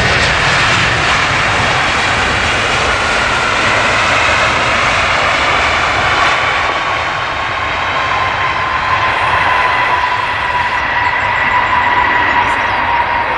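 Narrow-body jet airliner's turbofan engines passing close, a loud steady rush with a whine that slowly falls in pitch.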